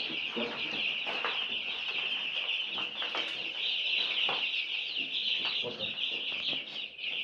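A brooder full of four-day-old broiler chicks peeping all together: a dense, continuous high-pitched chorus of overlapping peeps, with a few soft knocks now and then.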